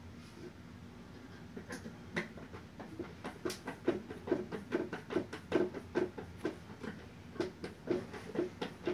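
A screw being turned by hand into a desk panel during assembly: a run of short creaks and clicks, a few a second, starting about two seconds in and growing denser.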